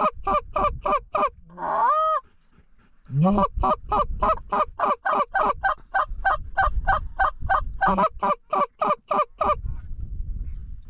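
Goose call blown at Canada geese in fast, evenly spaced clucks, about four a second, each breaking sharply from a low note up to a high one. About two seconds in comes one long drawn-out rising honk; then, after a short pause, a long steady run of clucks stops a little before the end.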